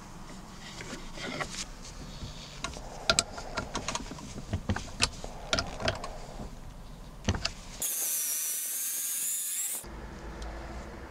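A keyed drill chuck being worked by hand with its chuck key: irregular sharp metal clicks and rattles of the key's teeth on the chuck's gear ring. Near the end a high hiss lasts about two seconds, followed by a low steady hum.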